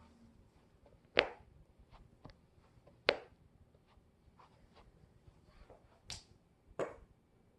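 Joints being cracked during a self-adjustment: four sharp, loud pops, the last two close together, with a few fainter clicks between.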